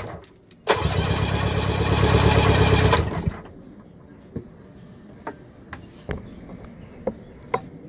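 Electric starter cranking a Mercury 850 four-cylinder two-stroke outboard for a compression test: a fast, even chugging that starts about a second in, runs for about two and a half seconds and stops abruptly. A few faint clicks follow.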